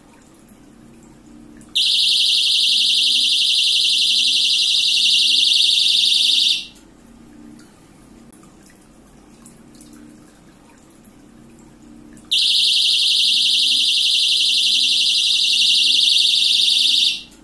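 Battery-powered ibbitech water-level alarm's piezo buzzer sounding a shrill, high-pitched electronic buzz in two long bursts of about five seconds each, with a pause between them. It signals that its copper-wire probe is touching water.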